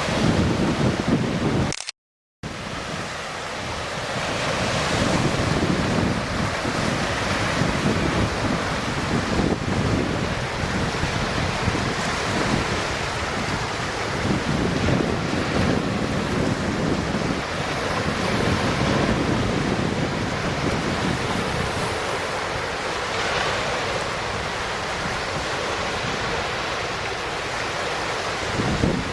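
Wind buffeting the microphone in uneven gusts over a steady rushing noise, with the sound cutting out to silence for a moment about two seconds in.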